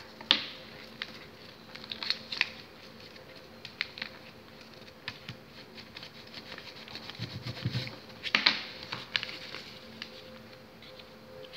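Sheet of printer paper rustling and crinkling as its edge is rolled up around a wooden pencil, with irregular sharp taps and clicks against the tabletop.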